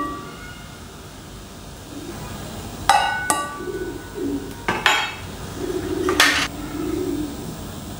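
Ringing clinks of metal and glass kitchenware, two close together about three seconds in, more near five seconds and a duller strike near six, with a bird cooing low in between.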